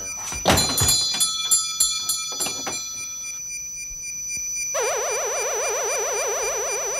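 A shop door is pushed shut, with a few knocks and sharp ringing strikes from the door and its bell over the first three seconds. About five seconds in, a synthesizer tone starts abruptly and holds, warbling rapidly up and down: an electronic sound effect.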